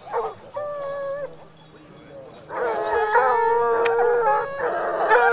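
A pack of hunting hounds baying in long, drawn-out howls, several voices overlapping. A shorter cry comes about a second in, then a lull, before the baying starts up again.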